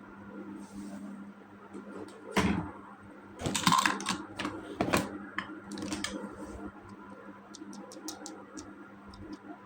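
Plastic toy pieces handled and tapped: a sharp click about two and a half seconds in, a cluster of knocks and rattles around four seconds, another click near five seconds, then a run of light ticks near the end.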